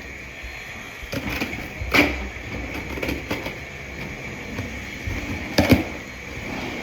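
A box being opened and handled: scattered knocks, scrapes and rustles, with a sharp knock about two seconds in and the loudest pair of knocks near the end.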